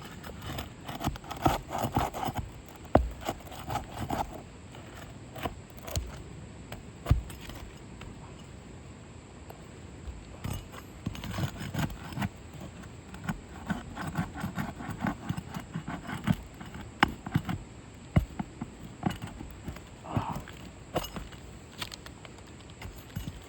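Irregular taps, knocks and scrapes of hand work on a roof, with sharp clicks scattered through.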